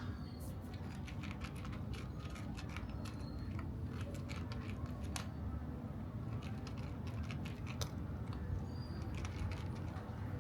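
Cats crunching dry food: many quick, irregular crunching clicks over a steady low rumble.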